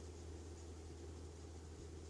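Faint steady low hum with a light hiss: background room tone.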